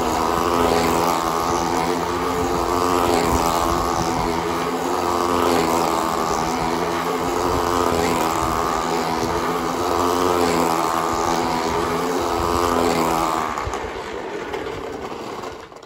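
Tether car's small two-stroke model engine running flat out as the car circles the centre pole. The sound swells and its pitch wavers about every two and a half seconds with each lap, and it fades away near the end.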